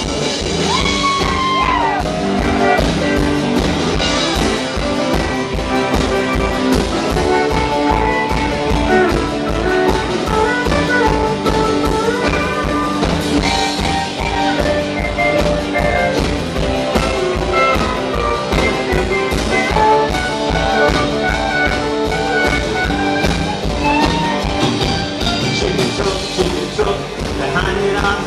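Live rockabilly band with acoustic guitar, electric bass and drums playing a honky-tonk song over a steady, driving beat.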